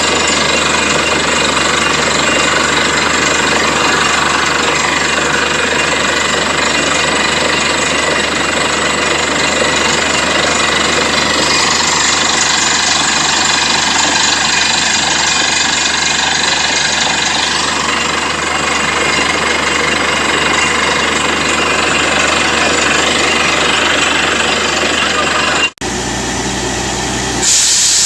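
Borewell drilling rig running loud and steady: engine and air compressor drone with the rattle of the down-the-hole hammer. Near the end the sound breaks off briefly and a loud rush of hissing air starts.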